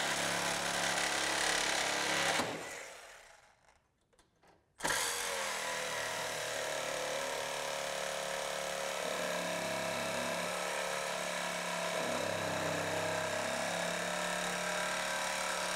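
Handheld high-speed rotary tool cutting through a thin sheet-metal bracket. It runs steadily, winds down and stops about three seconds in, starts again after a second or so of silence, and runs on with its pitch dipping slightly as it bites, winding down again near the end.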